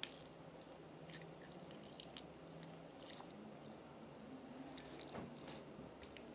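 Slime being handled and kneaded by hand, faint and sticky: scattered small clicks and squelches, with one sharper click at the very start.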